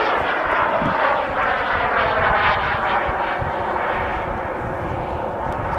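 Turbine engine of a radio-controlled model jet running as the plane passes, its whine slowly falling in pitch and growing quieter.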